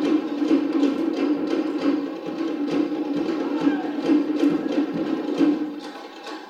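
Cook Islands drumming: wooden slit drums beaten in a fast, dense rhythm, easing off and growing quieter near the end.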